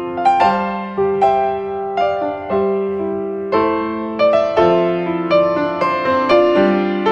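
Background piano music: a slow melody of struck notes, each dying away, over sustained lower notes.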